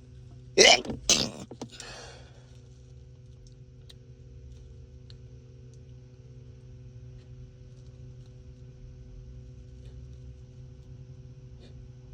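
A man sneezing hard twice in quick succession, followed by a short breathy exhale; then only a low steady hum with a few faint clicks.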